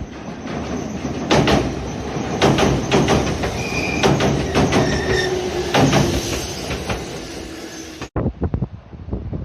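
Nagano Electric Railway express train running past, its wheels clacking heavily over rail joints, with a few brief high-pitched wheel squeals. The sound cuts off abruptly about eight seconds in.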